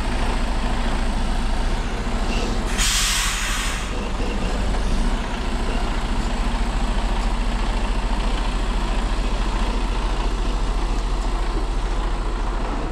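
Heavy goods lorry's diesel engine running steadily, with a short burst of air-brake hiss lasting about a second, some three seconds in.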